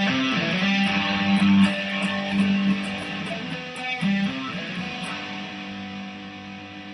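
Custom-built Ibanez Fireman-style electric guitar played with the bridge and neck pickups mixed. A run of picked notes comes first, then a chord is struck about four seconds in and left ringing, slowly fading.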